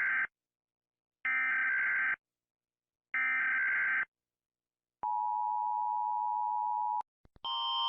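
Emergency Alert System header: three screechy digital data bursts, each about a second long with a second's gap, then a steady two-tone attention signal for about two seconds. Just before the end a different, louder alarm tone starts.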